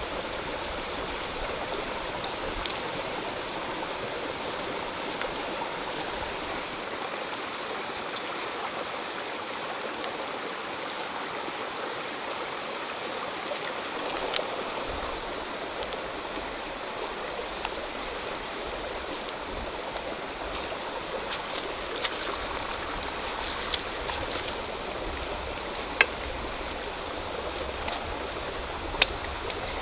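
Steady rush of flowing water, with a few sharp clicks scattered through it.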